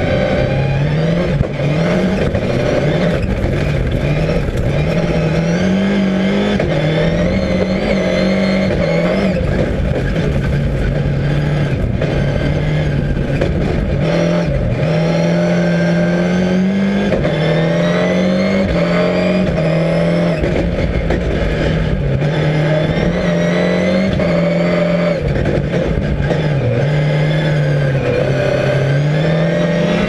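Ford Focus rallycross Supercar's turbocharged engine revving hard, heard from inside the cabin, its pitch climbing and dropping back again and again as the car is driven through gear changes and lifts.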